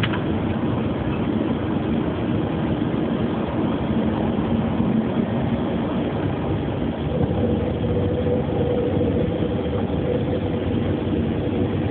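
Steady flight-deck noise of a Boeing 737-800 climbing out just after take-off: rushing air and the engines running. A faint steady hum joins about seven seconds in.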